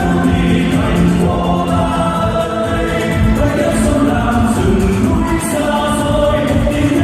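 Choir singing a song with musical accompaniment, voices holding long notes.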